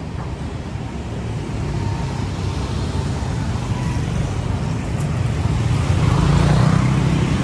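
Road traffic running along the street, with one vehicle's engine and tyres swelling louder as it passes close near the end.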